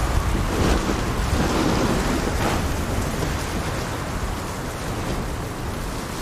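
Wind blowing steadily, a rushing noise with a heavy low rumble that eases slightly toward the end.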